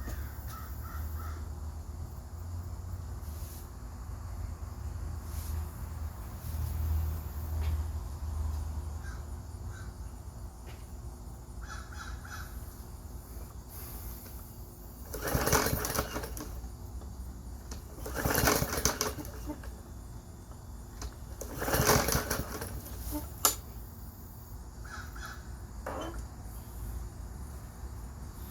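Lawn mower's recoil starter pulled three times, a few seconds apart, each pull cranking the engine with a short rapid rasp that does not catch. A sharp click follows. The owner suspects bad fuel in the carburettor.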